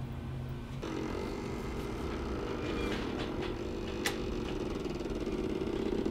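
The Jeep's HVAC blend door actuators running: a steady creaking whir that starts about a second in, with a sharp click about four seconds in.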